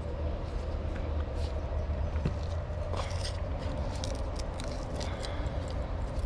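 Light clicks and small metallic ticks of washers, shims and a rubber O-ring being handled and fitted onto an excavator bucket pivot pin, over a steady low hum.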